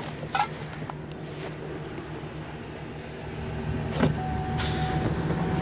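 Car door shutting with a thump about four seconds in, followed by a steady whirring hiss, over the low steady hum of a car.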